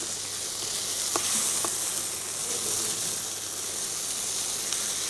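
Small tomatoes and pancetta sizzling steadily in a frying pan as they are stirred with a spatula, with two faint clicks of the spatula against the pan about a second in.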